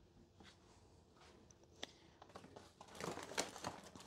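Faint rustling and crinkling of a shopping bag being rummaged for groceries, beginning about three seconds in after a near-quiet start with a light tap or two.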